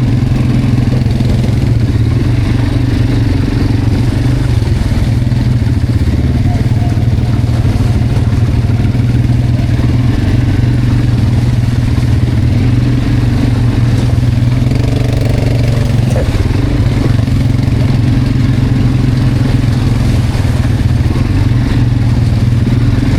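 Quad bike (ATV) engine running steadily while being ridden, loud and even throughout.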